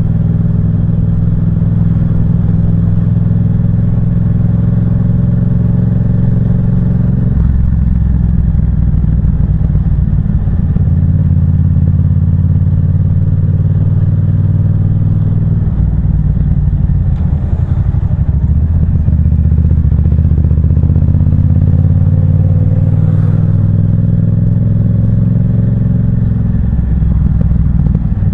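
Yamaha MT-07's parallel-twin engine running through an aftermarket Firetong sports exhaust, loud and continuous. The engine note steps to a different pitch several times.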